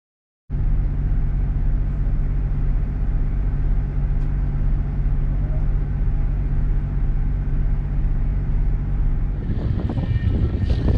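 Boat's motor running steadily with a low drone, starting after a brief silence; about nine and a half seconds in, wind and water noise rise over it.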